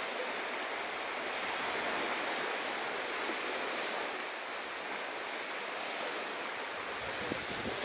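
Steady, even wash of sea surf breaking nearby, with no distinct events.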